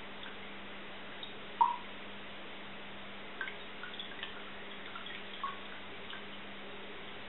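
Water dripping from a frosted glass carafe into a glass of absinthe, single drops at irregular intervals, the loudest about one and a half seconds in, over a steady low hum. This is the slow drip that turns the green absinthe cloudy (the louche).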